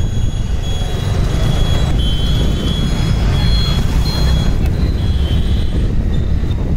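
Riding a motor scooter through traffic: a steady low rumble of wind on the microphone over the scooter's running engine and the surrounding motorbikes, with thin high tones coming and going.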